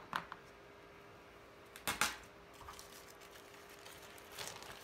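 A few short clicks and knocks of small things being handled and set down on a craft table, the loudest about two seconds in, over a faint steady hum.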